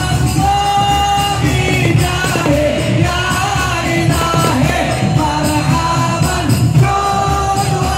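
Amplified devotional sholawat singing for the qiyam, the standing part of a maulid, with long held and gliding vocal lines over a dense steady beat of hadroh frame drums.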